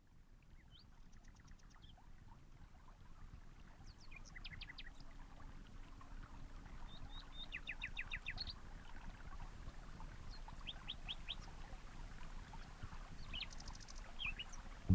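Wild birds chirping, with scattered short calls and several quick trills of four to six notes, over a low background rumble. The sound fades in, growing louder over the first few seconds.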